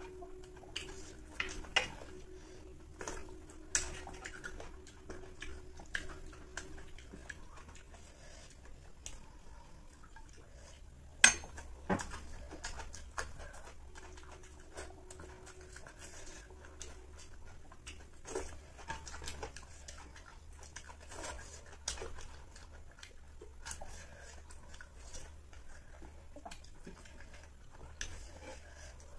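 Eating by hand from clay plates: scattered light clicks and clinks of a spoon and fingers against the terracotta plates, with soft chewing. The sharpest knock comes about eleven seconds in.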